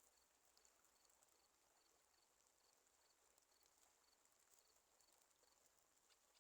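Near silence: faint outdoor ambience with a soft high chirp repeating about twice a second over a steady high hiss.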